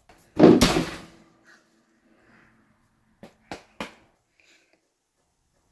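Kitchen oven door shutting with one loud bang about half a second in, followed by a faint brief ring. A few seconds later come three light clicks.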